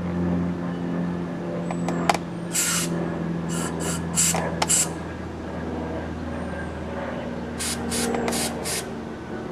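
Aerosol brake cleaner sprayed in short hissing bursts onto metal rifle bolt parts: one longer spray, then a quick run of four, and after a pause another quick run of four, with a couple of sharp clicks about two seconds in. A steady low hum runs underneath.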